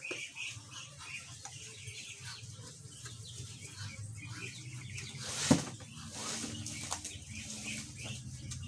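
Birds and chickens calling in the background, with one sharp knock about five and a half seconds in.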